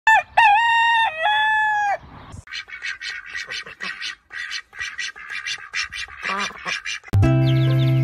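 A rooster crowing, then a rapid run of hen clucks. A loud, steady music chord sets in about seven seconds in.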